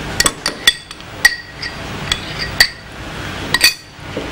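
Metal tongs clinking against a ceramic serving platter as grilled chicken pieces are set down on it: about ten sharp, ringing clinks at irregular intervals, some in quick pairs.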